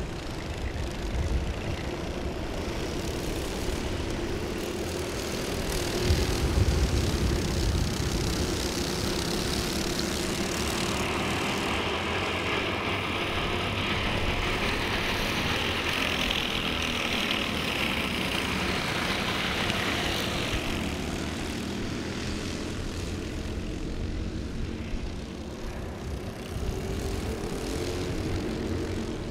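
A pack of Honda cadet racing karts with small four-stroke engines running flat out around the circuit, a steady buzzing drone. It swells louder and brighter in the middle as the karts pass close, then fades back.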